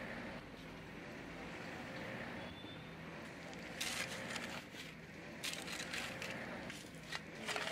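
A long-handled hoe scraping and digging into loose murram gravel, with three short crunching strokes about a second and a half apart in the second half.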